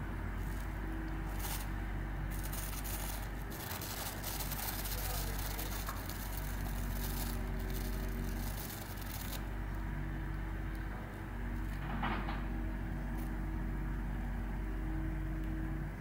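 Budgerigar pecking and nibbling at a thin plastic bag, making crinkly rustles that come and go through the first half or so. A steady low hum runs underneath.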